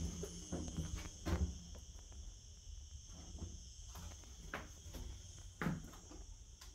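Steady high drone of insects outside, over a few soft footsteps on a tiled floor, the clearest near the start and about a second and a half and five and a half seconds in.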